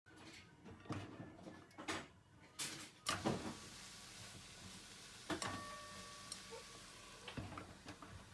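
Scattered knocks and clicks of objects being handled and set down, the loudest about three seconds in, with a thin steady tone lasting about a second and a half from just past the middle.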